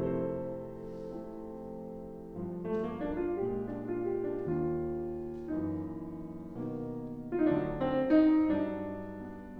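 Solo grand piano playing a slow, jazz-flavoured passage of sustained chords that change about once a second. It swells louder about eight seconds in, then eases off.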